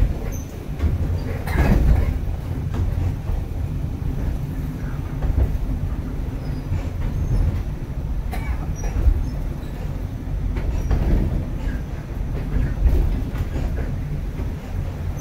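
Ikoma Cable Line funicular car running downhill on its rails, heard from inside the cabin: a steady low rumble with a few sharp clacks from the wheels and track.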